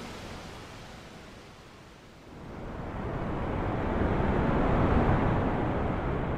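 Sea waves washing in: a rushing surge that ebbs away, then a second wave builds from about two seconds in, peaks near the end and begins to recede.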